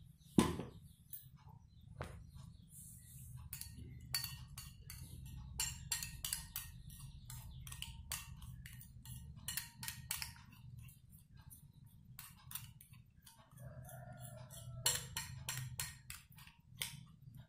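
Metal spoon stirring clear glue in a glass dish, clinking and tapping against the glass in many quick irregular clicks, with a louder clink about half a second in.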